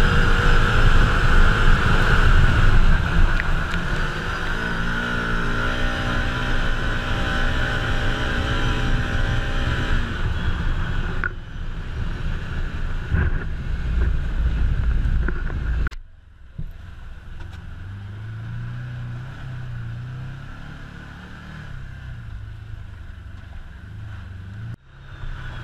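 Side-by-side UTV engine running steadily under way, with wind buffeting the microphone. About two-thirds of the way in, the sound drops suddenly to a quieter, lower engine hum.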